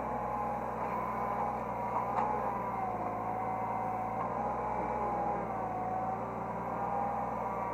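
Hydraulic excavator running, heard from inside the operator's cab: a steady engine drone under a hydraulic whine that rises and falls in pitch, with a light knock about two seconds in.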